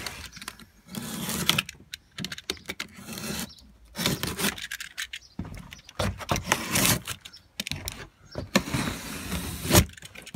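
Cardboard parcel being opened with a utility knife: the blade scoring through packing tape and cardboard, and the flaps scraping and rubbing, in short irregular bursts. A sharp knock near the end.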